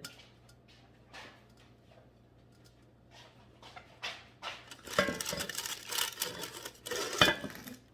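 Dutch oven lid being handled and set on the pot. After a few quiet seconds there are scattered clicks, then a run of clatter about five seconds in, ending in a sharp knock near the end.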